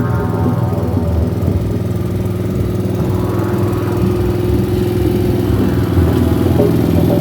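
Off-road motorcycle engine running, fitted with a ski and track kit for snow, rising briefly in revs a couple of times.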